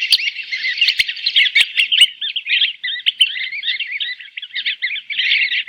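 A flock of sanderlings calling to each other: a continuous chatter of many short, overlapping high chirps.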